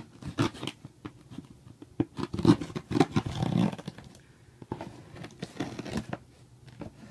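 Silver duct tape on a cardboard box being cut with a blade and pulled off by hand: a string of scrapes, crackles and tearing, busiest around the middle.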